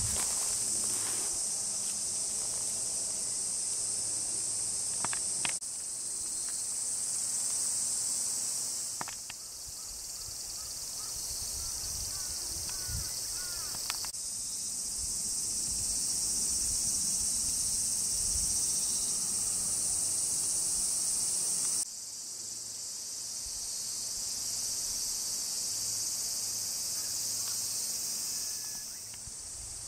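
Chorus of cicadas: a dense, steady, high-pitched shrilling that goes on without a break, shifting in level abruptly three times.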